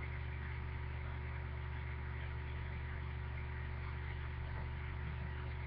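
Steady low electrical hum with a faint hiss underneath, unchanging throughout: room tone carrying mains hum.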